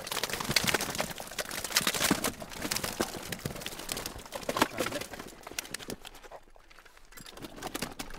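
Wet fish flapping and slapping in a plastic weigh sling as a keepnet is emptied into it: a dense run of sharp slaps and splashes for about six seconds, then only a few scattered ones.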